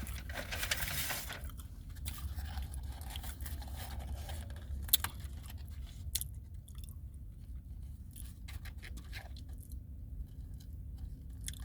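Close-up mouth sounds of someone eating a McRib sandwich: chewing with irregular wet clicks and smacks. A sharp click comes about five seconds in.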